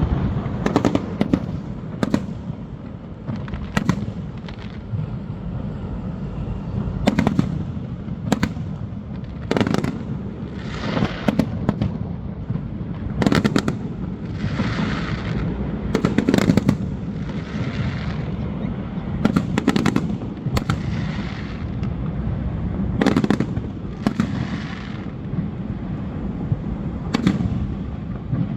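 Aerial fireworks bursting: a string of sharp bangs, about one every second or two, several followed by a second or so of crackling, over a steady low rumble.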